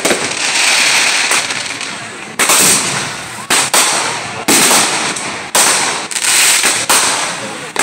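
Aerial fireworks shells bursting overhead: a dense crackle for the first two seconds, then a string of loud bangs about one a second, each trailing off in an echo.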